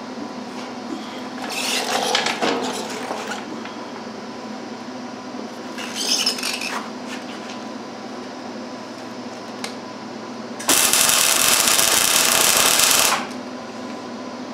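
Metal parts clinking and being handled during steel fabrication, over a steady hum. Near the end comes a loud, harsh, steady noise lasting about two and a half seconds that starts and stops abruptly.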